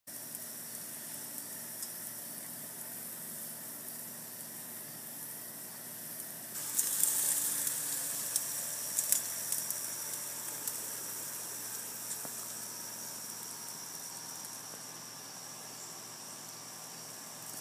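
Chicken drumsticks sizzling on a gas grill rotisserie, a steady hiss of fat cooking. About six and a half seconds in the sizzle gets louder, with sharp pops and crackles.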